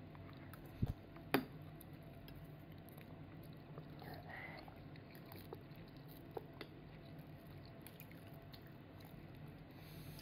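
A toddler eating soup with a metal spoon from a ceramic cup: the spoon clinks sharply against the cup twice about a second in, followed by faint chewing and small mouth sounds.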